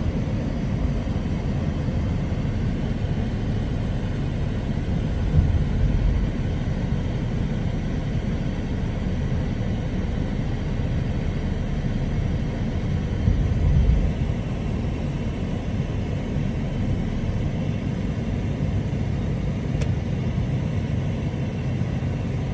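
Steady low rumble of a car's engine and tyres heard from inside the moving car's cabin, with two brief louder low swells, about five and fourteen seconds in.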